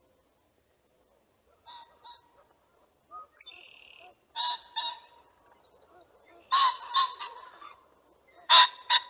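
Pheasant calling: four harsh two-note calls, each pair of notes close together, the first faint and the last two loudest.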